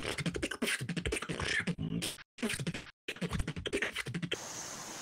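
A beatboxer performing a rapid run of percussive vocal drum sounds, broken by two short gaps. It stops about four seconds in, leaving a steady hiss.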